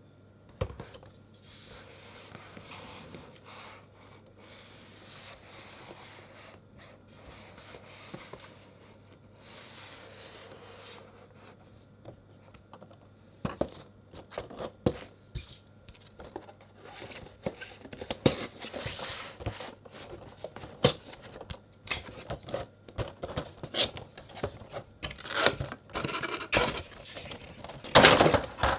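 A cardboard Funko Pop box being handled and opened: soft rubbing at first, then a run of taps, clicks and scrapes on cardboard and plastic as the box is pulled open, loudest near the end as the clear plastic tray is slid out.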